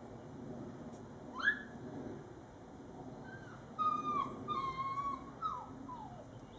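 A dog whining: one short rising whine about a second and a half in, then a string of high whines from about four to six seconds in, the last ones falling in pitch.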